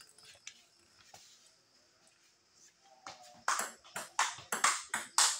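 Table tennis ball in a rally: after a few faint taps, a quick run of sharp clicks begins about three and a half seconds in, about four a second, as the ball strikes bats and table in turn.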